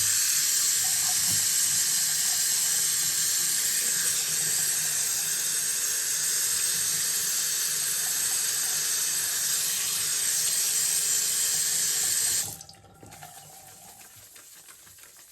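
Tap water running steadily into a sink, cut off suddenly about twelve seconds in. After that come faint wet rubbing sounds of a soap bar being worked into a lather.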